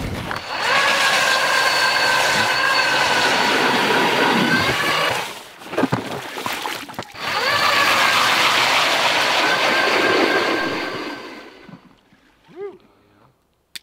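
Electric ice auger drilling a hole through river ice, its motor whining steadily. The motor stops for a second or two midway, with a few knocks, then runs again and winds down near the end.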